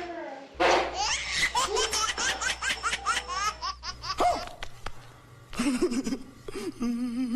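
A person laughing hard: a quick run of laugh pulses lasting about three seconds, then dying away.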